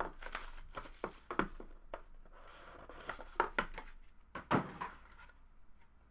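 Trading card box being opened by hand: plastic wrap torn and crinkled, with several sharp clicks and taps as the cardboard and cards are handled.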